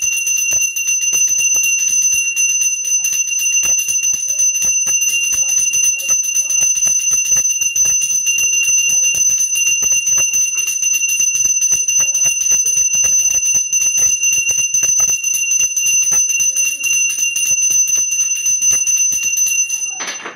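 Puja hand bell rung rapidly and without pause for aarti: a steady metallic ring over a fast rattle of clapper strikes. It cuts off suddenly near the end.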